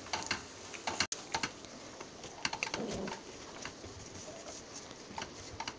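Wooden spatula stirring chopped beans in a non-stick kadai: soft scrapes and scattered light taps against the pan.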